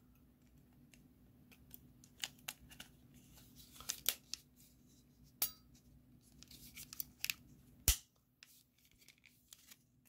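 Hands fitting the back cover onto an Apple TV remote control: scattered small plastic clicks and taps as the parts are pressed together, with a sharper click about five seconds in and the loudest snap near eight seconds.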